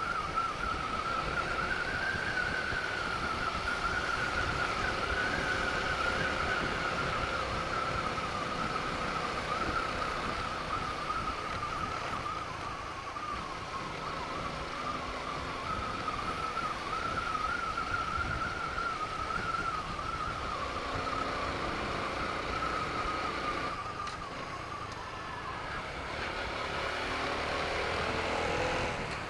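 Motorcycle on the move: engine running under road and wind noise, with a high whine that wavers slowly in pitch through most of it. Near the end the pitch rises as the engine speeds up.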